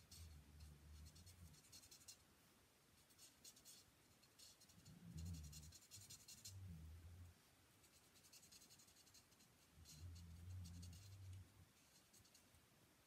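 Faint scratching of a Stampin' Blends alcohol marker's tip stroking across cardstock in clusters of short strokes. A low hum sounds three times, each about a second and a half long.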